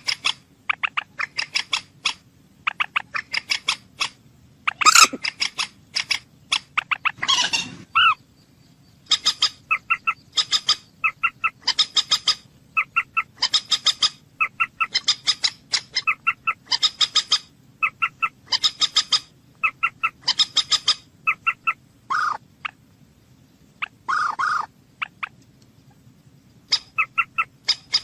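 Moorhen calling: runs of short, sharp clucking notes in quick groups, broken by a few longer harsh calls.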